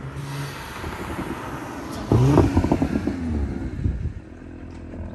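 Audi SQ5 with front resonator delete pipes driving past under acceleration. Its exhaust and tyre noise build as it approaches, the engine note jumps sharply about two seconds in as it revs up, and the sound falls away about four seconds in once it has passed. Not too loud, not too quiet.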